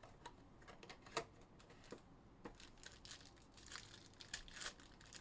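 Faint crinkling and tearing of a foil trading-card pack being opened by hand, after a cardboard box flap is pulled open, heard as scattered short crackles.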